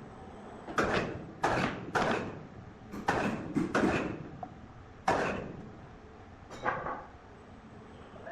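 A series of about eight sharp knocks or bangs at irregular intervals, each dying away quickly.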